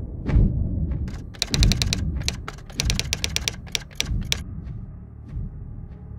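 Typewriter-style typing sound effect: quick runs of sharp clicks as on-screen text is typed out letter by letter. Under it runs a low rumble with a soft thump about once a second.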